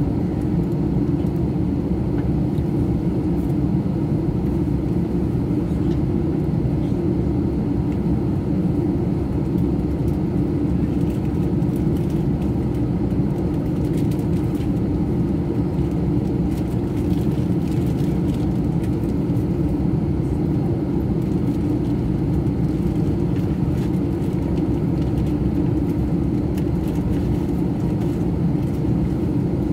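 Steady low drone inside a jet airliner's cabin as its engines run at ground idle before departure.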